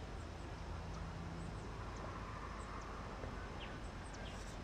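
Quiet outdoor ambience: a steady low rumble with a few faint, scattered bird chirps.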